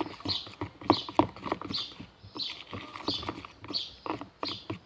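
A spoon stirring white glue and shaving foam in a container, with repeated knocks and soft squelching about two or three times a second.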